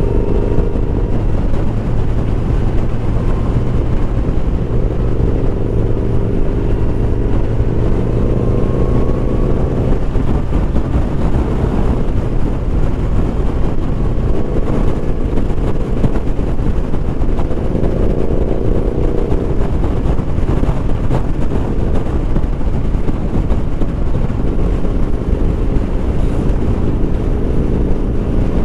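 Kawasaki Z900's inline-four engine running at highway speed under heavy wind noise, its note rising in pitch several times as it pulls.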